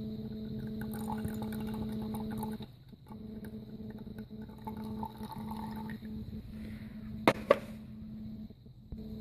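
Honey-and-onion liquid being strained and poured, faint liquid and handling sounds over a steady electrical hum. Two sharp clicks come about seven seconds in.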